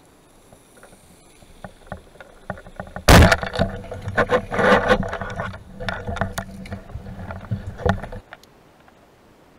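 Rubber-band speargun fired underwater: a sharp crack about three seconds in. Several seconds of clattering and rattling from the shaft and line follow, with a low rumble, heard through the underwater camera housing, then it cuts off suddenly.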